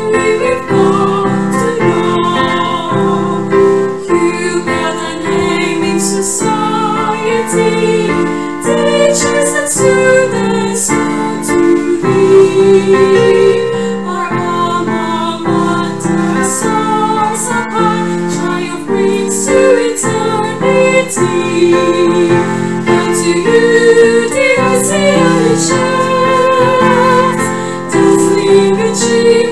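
A high school hymn sung with piano or keyboard accompaniment, the voices holding long notes over a steady chordal backing.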